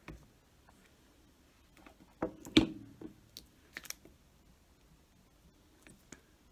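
Light clicks and taps of small objects handled on a tabletop while a hot glue gun is set down and a small piece is pressed into place. The loudest cluster comes about two and a half seconds in, with a few softer ticks after it.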